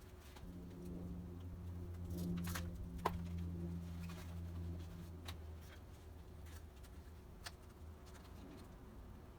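A low steady hum for about four and a half seconds, with a few scattered sharp clicks and taps.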